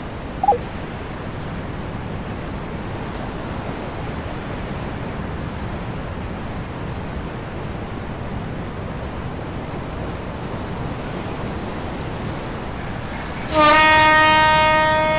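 Steady rushing background noise, then near the end a boat horn sounds, a loud, sustained single-pitched blast.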